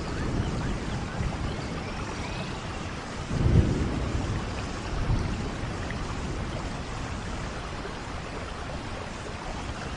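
Steady rain with thunder rumbling low, swelling loudest about three and a half seconds in and again more weakly a little later.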